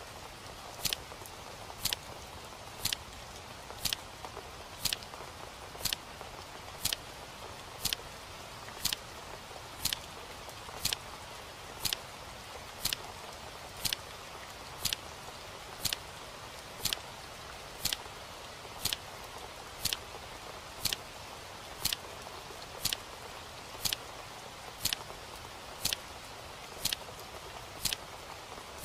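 A clock ticking steadily about once a second, with a faint steady hiss underneath.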